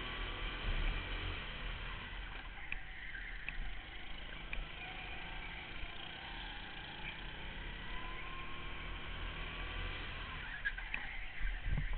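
Go-kart engine running under an onboard camera, its pitch rising and falling as the kart speeds up and slows through the corners. There is a brief louder knock near the end.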